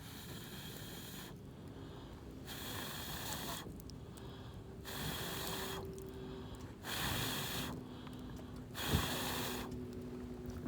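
Someone blowing air onto a wood fire in five regular breaths, each whoosh lasting about a second, with one sharp pop from the fire about nine seconds in.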